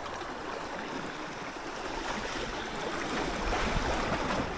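Seawater washing and lapping, with wind buffeting the microphone in low gusts that grow stronger near the end.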